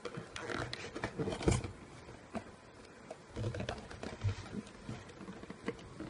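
Cardboard box being handled and worked at by hand, irregular rustling, scraping and small knocks as the box resists opening, with the loudest knock about a second and a half in.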